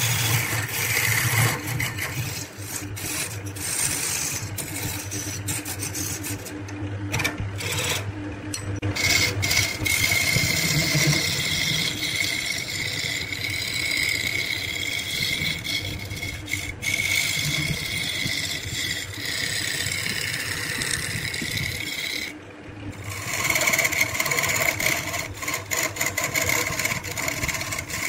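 Wood lathe running while a flat chisel scrapes and cuts a spinning wooden blank, a continuous rasping cut with a steady high tone over it. The cut drops away briefly about three quarters of the way through, then resumes.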